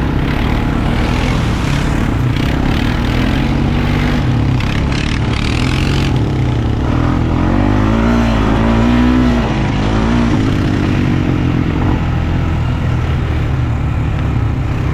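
ATV engine running under way on a muddy trail, its pitch rising and falling as the throttle is worked, most clearly about halfway through. Clattering and scraping run underneath throughout.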